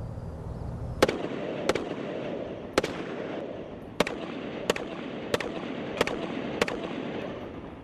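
A .308 battle rifle firing eight semi-automatic shots at an uneven pace, about one a second or a little faster, each crack echoing on into the next.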